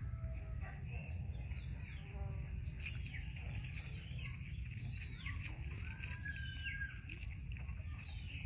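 Outdoor garden ambience: scattered short bird chirps and calls over a steady high-pitched whine and a low rumble.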